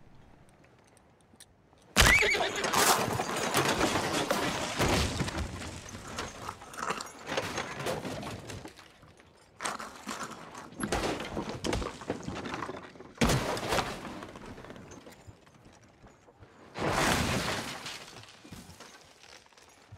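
A horse whinnying in distress, mixed with the crashing and splintering of a wooden cart. The loud crash begins suddenly about two seconds in, and sudden bursts come again several more times.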